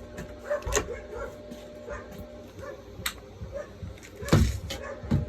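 A dog whining and yipping softly, with a few knocks, the loudest about four seconds in, over a steady hum.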